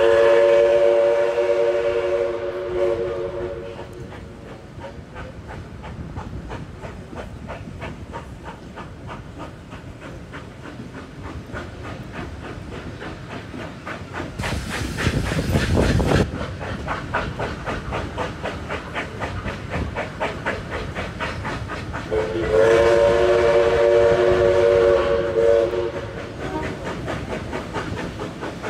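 Steam locomotive 5917's chime whistle sounding two long blasts, each about three seconds, a chord of several steady notes: one at the start and one about 22 seconds in. Between them the carriage wheels clatter over the rail joints in a steady rhythm, with a brief loud rush of noise around the middle.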